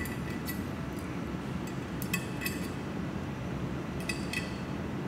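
Small metal coil springs and pins clinking together in a hand and being set into holes in an aluminium base plate: a few light metallic clinks, over a steady low hum.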